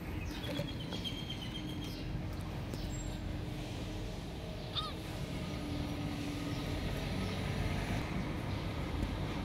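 Steady outdoor background noise, mostly a low rumble, with one short high chirp about five seconds in.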